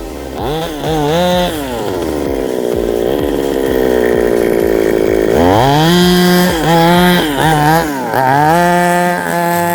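Rovan Baja 5B's small petrol two-stroke engine revving in repeated short throttle blips, rising and falling in pitch, with a longer steady high-speed run in the middle.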